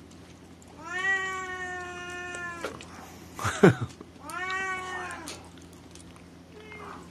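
A cat meowing: a long drawn-out meow of about two seconds, then a shorter one about a second long, with a brief loud harsh sound dropping in pitch between them and a faint short meow near the end.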